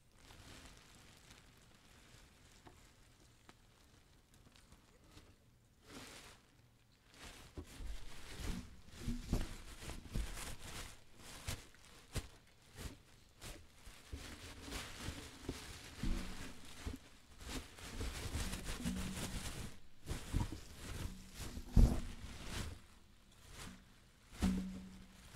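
Plastic trash bags rustling and crinkling as trash in a dumpster is rummaged through, with scattered knocks and thuds. It is fairly quiet at first; the rummaging starts about seven seconds in, and one knock stands out near the end.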